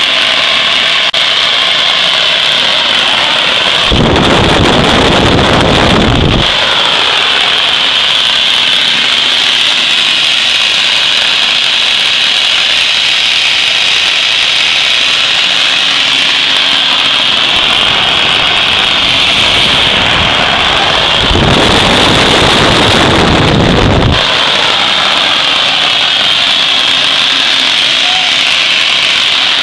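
Homemade propane-fuelled turbojet built from a turbocharger, running: a steady high-pitched turbine whine over a rushing combustion noise. Twice, about four seconds in and again past the twenty-second mark, a louder, deeper rush lasts two or three seconds.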